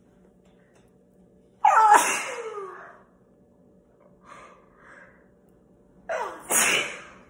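A woman sneezing twice during an allergy attack: once loudly about a second and a half in, trailing off, and again near the end after a short catch of breath. There are two faint small sounds between the sneezes.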